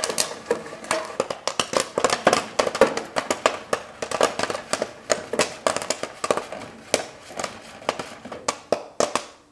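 Popcorn kernels popping inside a metal stovetop popcorn popper on a vintage gas stove: a dense, irregular run of sharp pops, several a second.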